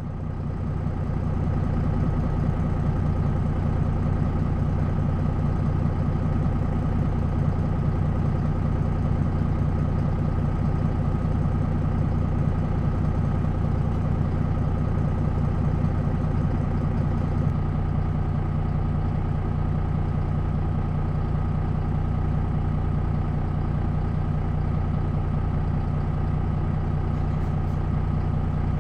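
MAN NL 263 city bus's D28 diesel engine idling steadily, an even low drone with no revving.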